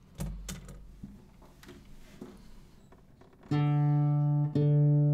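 Acoustic guitar: after a few light taps and string noises, a chord is strummed about three and a half seconds in. It is struck again about once a second and rings on between strokes.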